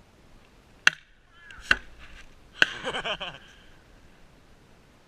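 Three sharp cracks, a little under a second apart, each followed by brief voice-like calls.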